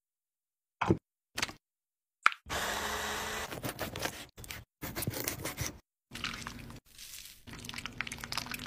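Close-up food-preparation sounds cut together: a few sharp clicks and a snap in the first seconds, then a knife cutting fish on a wooden board, then a wooden spoon stirring fish pieces in a bowl.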